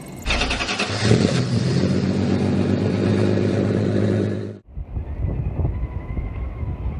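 An engine sound effect, running loud and steady at high revs, with a swell about a second in, cuts off abruptly after about four seconds. It is followed by a low rumbling noise with a faint wavering whine.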